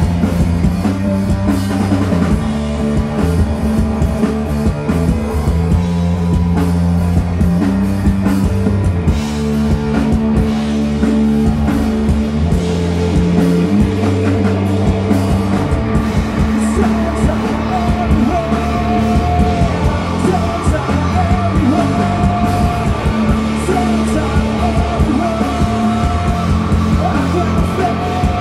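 A rock band playing live: electric guitars, bass and drum kit, with a man singing through the later part.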